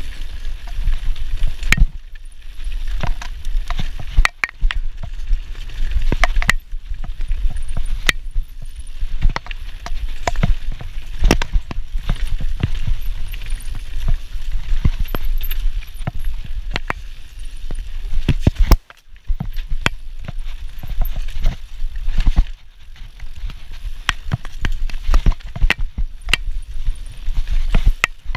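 Mountain bike descending a dirt forest trail at speed: tyres running over dirt and roots, with frequent sharp clatters and knocks from the bike over the bumps. A steady low wind rumble on the camera microphone runs under it, with a short lull about two-thirds of the way through.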